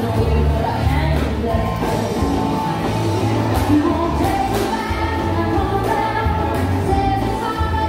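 Recorded song playing: a singer over a band with a strong, continuous bass line.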